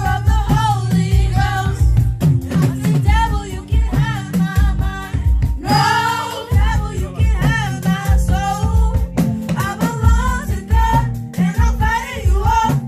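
Music: a vocal line sung over a drum beat and bass, with no clearly recognised words.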